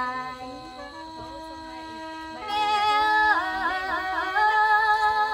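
Khaen, a Lao-Isan bamboo mouth organ, playing held chords under a melody. About two and a half seconds in, a woman's voice comes in loudly, singing a long mor lam phrase with wavering ornaments.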